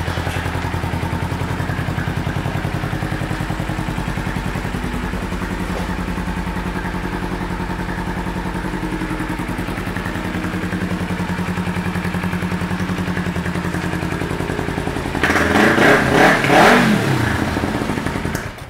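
2009 Kawasaki Ninja 250R's parallel-twin engine idling steadily through an aftermarket exhaust. About fifteen seconds in the throttle is blipped, the revs rising and falling, and the sound cuts off suddenly at the very end.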